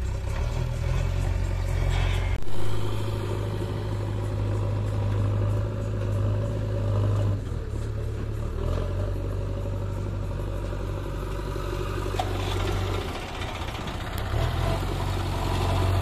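Diesel engines of a JCB 3DX backhoe loader and a tractor running steadily as the loader works, with the low hum shifting in level several times.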